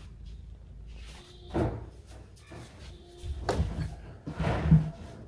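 A few knocks and clatters of hard objects being handled on a workbench, the loudest one near the end.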